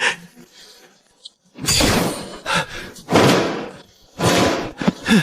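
A run of four or five heavy slamming thuds in quick succession, each with a short fading tail.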